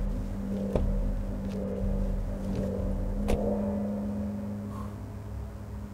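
Car door opening with a click and then shut with a louder thud about three seconds in, over a low steady hum and rumble.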